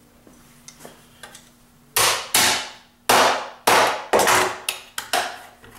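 Sharp metal strikes on a stamped steel Wiremold backing plate as its round centre knockout is knocked out. The strikes come in an irregular run of about nine, starting about two seconds in, each ringing briefly.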